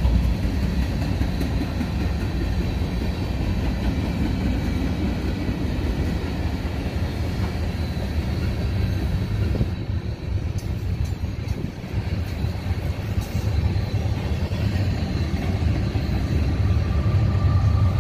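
Freight cars of a manifest train rolling past: a steady rumble and clatter of steel wheels on the rails. Near the end a low engine drone grows as the train's distributed-power locomotives draw near.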